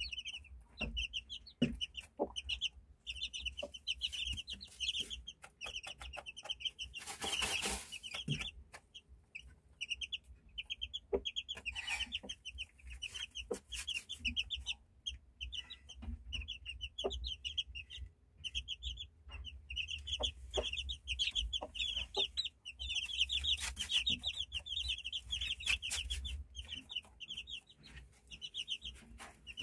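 Young Índio Combatente game chicks peeping continuously in rapid, high cheeps, with a few short bursts of rustling or flapping about a quarter of the way in, near the middle and again later on.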